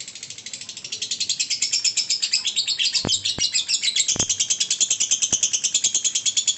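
Lovebird in a long unbroken 'ngekek' song: a fast continuous chatter of high chirps, about ten a second, getting louder about a second in. A few light clicks are heard in the middle.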